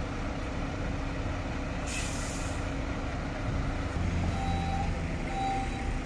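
Fire engines' diesel engines idling, with a short hiss of air brakes released about two seconds in. From about four seconds in, a truck's reversing alarm beeps about once a second.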